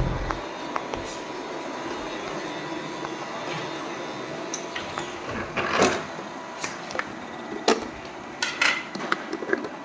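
Robot vacuum cleaner running with a steady whir, with a series of sharp knocks and clicks in the second half.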